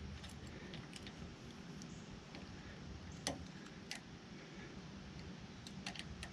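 Faint metal clicks and key clinks from a key being worked in a barrel-style hitch pin lock, with a sharper click a little past three seconds in.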